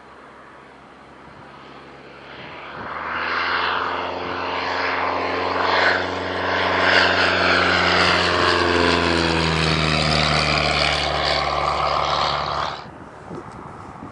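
Propeller aircraft engine growing louder as it approaches and passes close, its pitch dropping slightly as it goes by. It cuts off suddenly about a second before the end, leaving rough wind noise.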